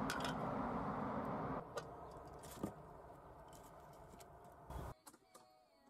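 A pot of vegetables boiling hard over a wood fire, then an aluminium lid set on it with two light metal clinks about a second apart. Once the lid is on, the bubbling is much quieter.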